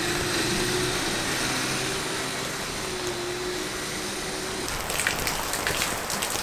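A steady droning vehicle noise, then an abrupt change about five seconds in to a rough crackling sound made of many short clicks.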